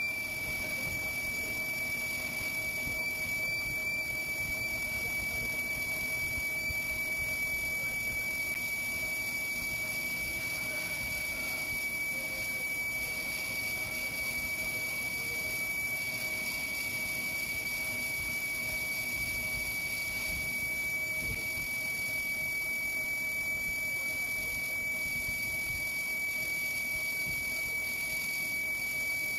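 Lathe boring tool cutting inside the bore of a spinning cast iron flange, the cut giving off a steady high-pitched whistle over the noise of the running lathe.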